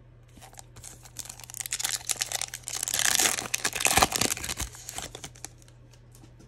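A plastic trading-card pack wrapper being torn open and crinkled by hand, loudest about three to four seconds in, with a sharp snap near the peak.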